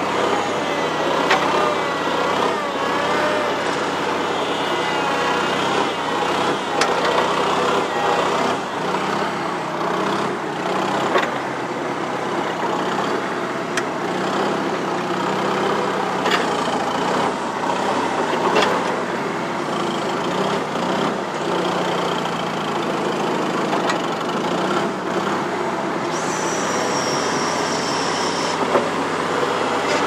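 New Holland L425 skid steer's four-cylinder Wisconsin engine running steadily, with scattered clanks and knocks from the machine. A short high whine sounds near the end.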